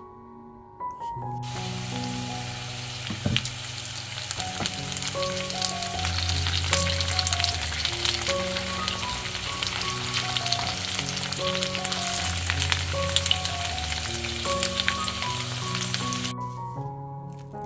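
Sliced potatoes and onions sizzling as they fry in oil in a nonstick frying pan, a dense hiss full of small pops. The sizzle starts about a second in and cuts off about a second before the end.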